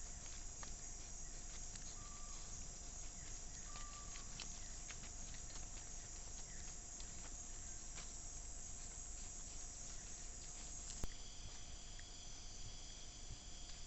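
Rainforest insect chorus: a dense, steady high buzzing with a constant lower tone beneath it, over scattered faint clicks and rustles and two short faint calls early on. A sharp click comes about eleven seconds in, and after it the chorus changes, as at a cut between camera-trap clips.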